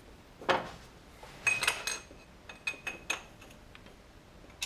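Steel hand tools clinking: a socket wrench and extension being handled and fitted onto a spark plug in a car engine bay. One sharp clink about half a second in, then a cluster of ringing metallic clinks, and lighter taps near the end.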